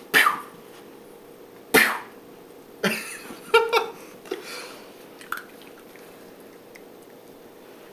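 Australian Terrier puppy giving a run of short, sharp huffs and yips, with one clearer pitched yip about three and a half seconds in, then falling quiet for the last couple of seconds.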